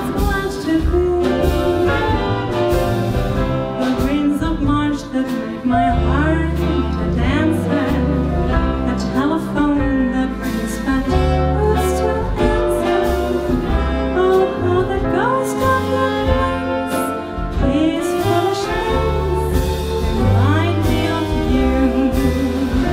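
A woman singing a jazz ballad with a live swing band: saxophones, piano, double bass and drums behind her voice.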